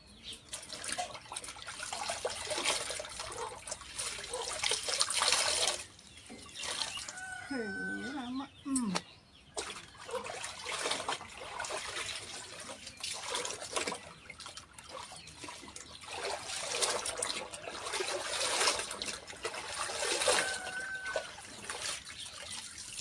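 Clothes being hand-washed in plastic tubs of soapy water: wet cloth swished, lifted and dunked, with splashing and water streaming back into the tub, in uneven bursts with short pauses. A brief pitched call sounds about eight seconds in.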